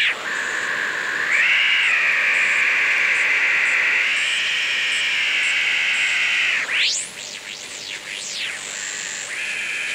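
Twinplex shortwave regenerative receiver with a type 19 tube, its speaker giving a steady heterodyne whistle over hiss that shifts pitch a couple of times. About two-thirds of the way through, squealing whistles sweep rapidly up and down as the tuning dial is turned across stations, the oscillating detector beating against their carriers.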